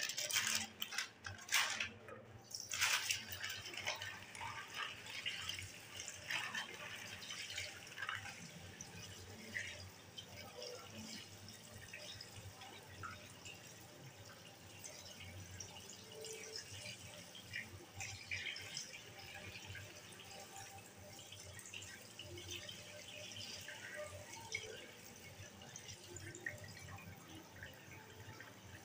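Tap water running, splashing and dripping in a sink while fish are washed by hand. It is an irregular patter of small splashes and drips, busiest in the first few seconds.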